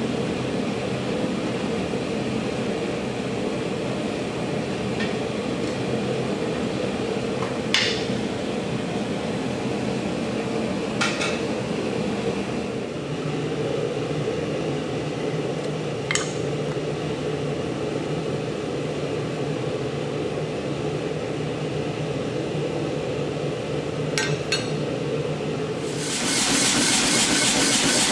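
Workshop sounds: a steady mechanical hum with a handful of sharp metal clinks scattered through it, one close pair among them. Near the end a loud, steady hissing rush starts up.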